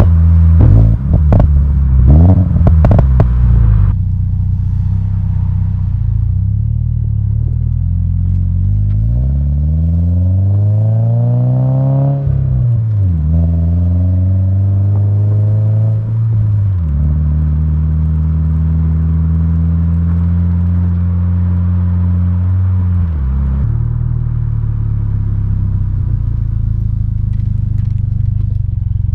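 2022 Subaru BRZ's 2.4-litre flat-four engine running through an Invidia N1 cat-back exhaust. For the first few seconds it crackles and pops sharply. Then the car accelerates, its pitch climbing and falling back at two gear changes, and settles into a steady cruise with one more drop in pitch near the end.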